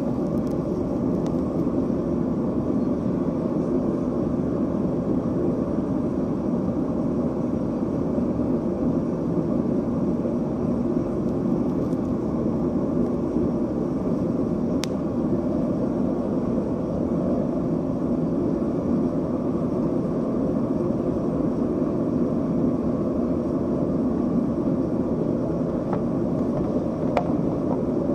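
Steady, unbroken drone of a running machine, with a faint click about halfway through and another near the end.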